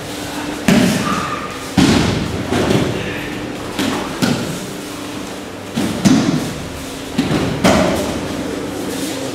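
Aikido partners being thrown and landing in breakfalls on the mats, a dull body thud or slap against the mat about once a second, some in quick pairs from different pairs around the hall.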